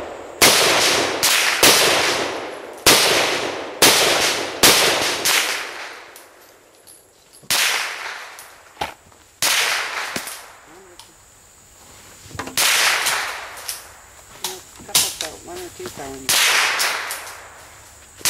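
Rifle shots, about fifteen at uneven intervals, sometimes two in quick succession. Each is a sharp crack that trails off in an echo lasting most of a second.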